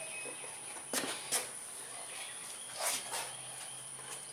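Quiet work-shop background: a steady high-pitched hum and a faint low hum, with a few light taps and clicks as parts are handled on the mower.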